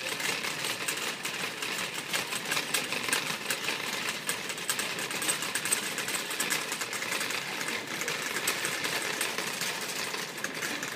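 Wire shopping cart rattling as it is pushed along the store floor: a rapid, continuous clatter of the basket and wheels.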